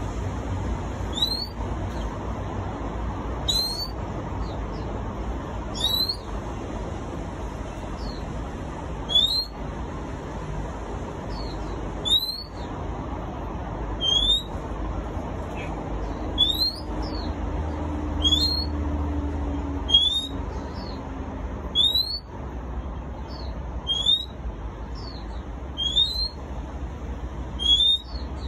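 Oriental magpie-robin singing short, rising whistled notes, about one every two seconds and sometimes two close together, over a steady low background rumble.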